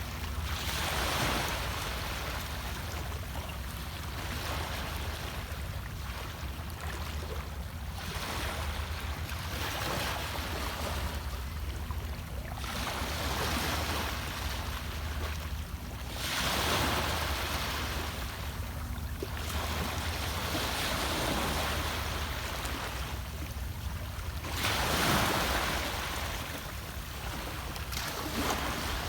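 Sea waves washing onto the shore, swelling and falling back in surges every several seconds, over a steady low rumble.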